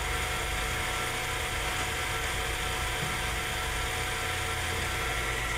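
Hybco form relieving grinder running under power: a steady electric motor hum and whine with no change in pitch.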